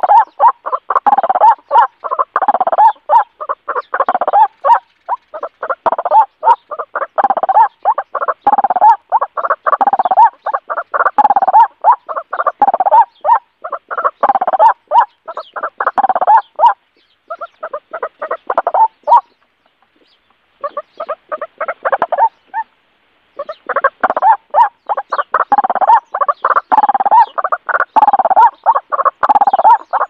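Loud, rapidly pulsed fowl-like bird calls, repeated phrase after phrase about every second and a half. They thin out and pause for a few seconds past the middle, then resume.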